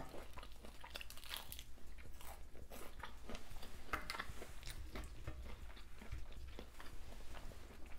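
Close-up chewing and crunching of crispy fried hot Cheetos-crusted food, a run of small crisp clicks and crackles.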